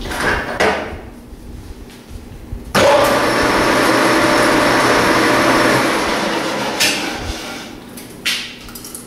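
A metal lathe switched on and run for about three seconds with a cloth held against the spinning steel tube, giving a loud, even rushing noise, then switched off and winding down. Short clicks and knocks come before it starts and after it stops.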